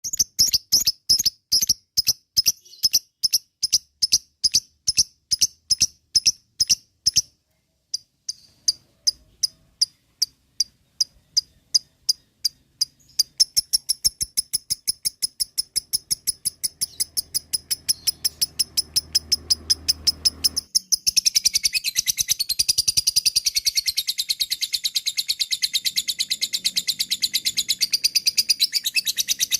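Lovebird calling in sharp, high, repeated ticks about three a second, breaking off briefly, then speeding up until, about two-thirds of the way in, it runs into a long, fast, continuous chatter: the excited 'ngekek' call.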